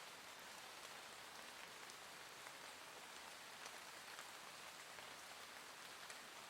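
Gentle rain falling steadily and faintly: an even hiss dotted with scattered light drop taps.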